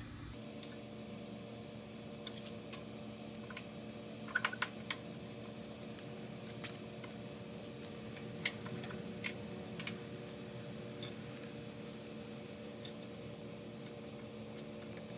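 Scattered light clicks and taps of hand tools on metal engine parts, with a short cluster about four seconds in, over a steady low hum.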